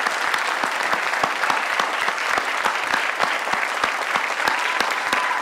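Audience applauding: many hands clapping steadily in a room.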